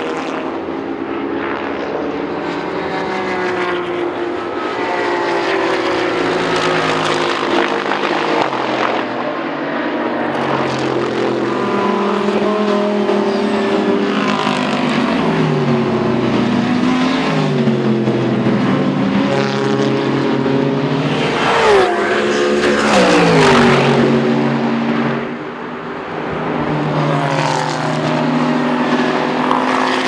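GT3 race car engines at racing speed, rising and falling in pitch through gear changes as the cars pass one after another. One especially loud pass comes about three quarters of the way through, its pitch dropping sharply as the car goes by.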